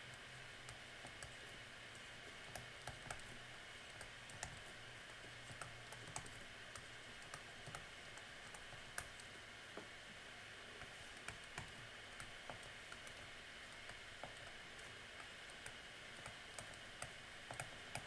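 Faint, irregular light clicks and taps of hand work at a desk, a few each second with gaps, over a steady low room hiss.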